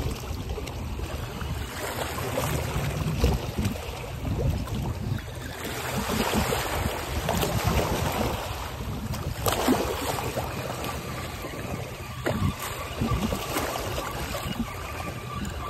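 Wind rumbling on the microphone over small waves lapping and splashing at the water's edge, with a few brief louder splashes or knocks.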